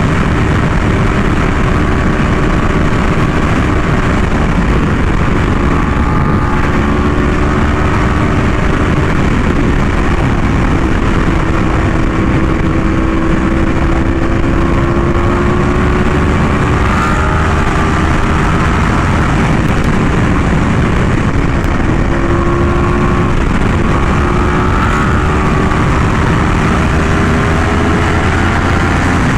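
Yamaha R1M's crossplane inline-four engine running through an SC Project exhaust while cruising, its pitch rising and falling gently with the throttle, over a steady rush of wind noise.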